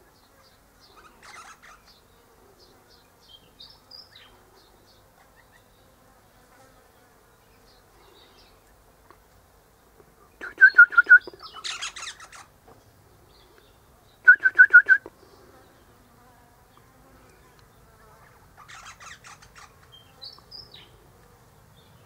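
Eastern rosella calling: a few short bursts of fast, harsh chattering notes, the loudest two about eleven and fourteen seconds in and a fainter one near the end, with thin high whistles in between.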